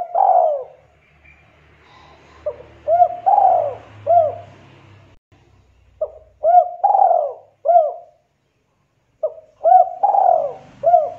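A dove cooing in phrases of several short, arching notes, with a new phrase about every three or four seconds.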